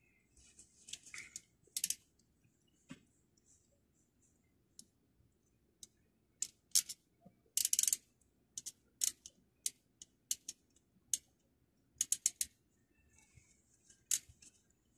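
A hand wire-cutting tool snipping and clicking on the thin wires of a thermostat cable, preparing them for connection. The snips come as a string of sharp, irregular clicks, some in quick runs of three or four, with brief soft rustling of the cable and glove between them.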